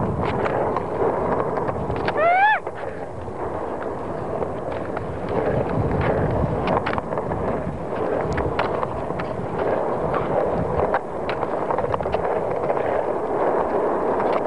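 Skateboard wheels rumbling steadily over rough car-park asphalt. Sharp clacks come now and then as the board's tail and wheels hit the ground during flatground tricks, and a brief rising squeal sounds about two seconds in.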